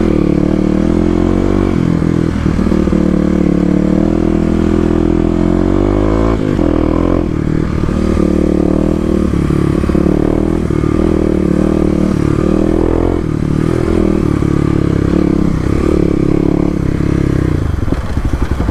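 Kawasaki KLX250's single-cylinder four-stroke engine, fitted with an FMF Q4 exhaust, running as the bike is ridden, the revs rising and falling with the throttle. The revs climb about six seconds in and drop to a low, lugging pulse near the end.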